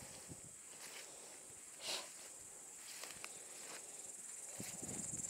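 Grasshoppers chirring steadily in a summer meadow, a constant high-pitched buzz, with grass brushing and rustling underfoot that grows louder near the end.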